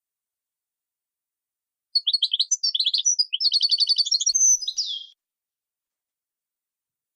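A songbird singing one phrase of about three seconds: quick, high notes and twitters, with a fast run of evenly repeated notes in the middle, as played from a song-tutoring recording for training cage birds.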